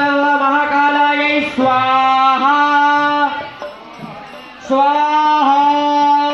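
Devotional chanting: a voice sings on one steady held pitch in long drawn-out phrases, with a pause of about a second near the middle.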